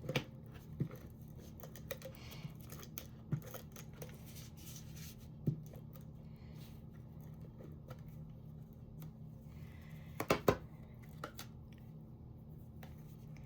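Paper-crafting handling sounds as adhesive is put on a cardstock piece: scattered light taps, clicks and rustles, with a quick cluster of sharp clicks about ten seconds in, over a steady low hum.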